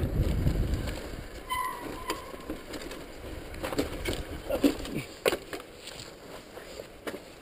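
Mountain bike rolling downhill over a rocky dirt trail. Wind rushes over the camera microphone for about the first second, then the tyres roll and the bike rattles, with scattered sharp clicks and knocks as it drops over rocks.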